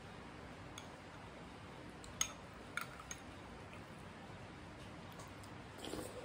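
Metal spoon clinking against a ceramic soup bowl, a few light taps with the loudest about two seconds in, then a short slurp of soup from the spoon near the end.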